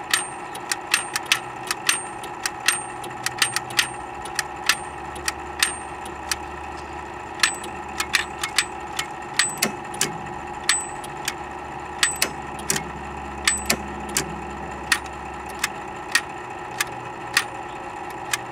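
Zenith Space Command mechanical ultrasonic remote control clicked over and over: sharp, irregular clicks, two or three a second, as the button-driven hammers strike its tuned aluminium rods, several clicks leaving a brief high ring. Each click sends one of the remote's command tones at about 38 to 41 kHz.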